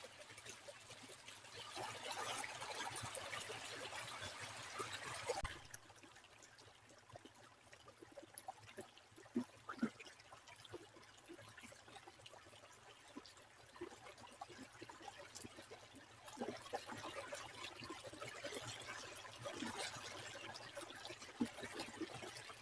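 A small stream trickling and gurgling, louder at first, then dropping suddenly to a quieter flow with scattered small plops and drips, and swelling again near the end.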